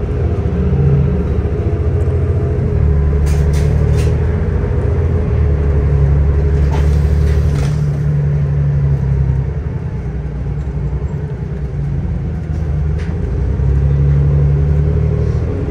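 A city bus in motion, heard from inside the passenger cabin: a steady low engine and road rumble with a hum. It eases off slightly a little past halfway, and a few light clicks or rattles sound over it.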